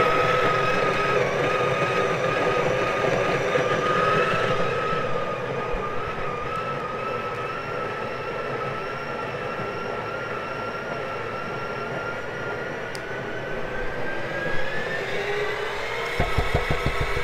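Breville Barista Pro's built-in conical burr grinder running steadily as it grinds an 18 g dose of coffee beans for espresso. The motor's whine rises in pitch near the end.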